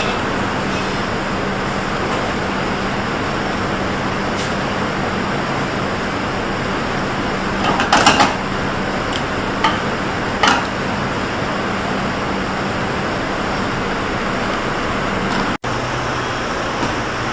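Steady rushing noise of a commercial kitchen's lit gas range and ventilation, with a constant low hum. A few short clatters of the frying pan come about eight and ten seconds in. Near the end the sound drops out for an instant and comes back with a lower hum.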